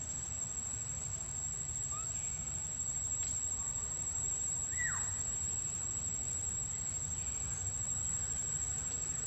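Steady high-pitched drone of insects over a low background rumble, with a few faint short chirps and one short falling call about five seconds in.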